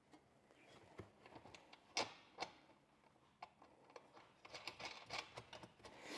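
Faint scattered clicks and taps of small hardware being handled: nuts being fitted loosely onto screws and floorboard plates being handled, with a small cluster of clicks near the end.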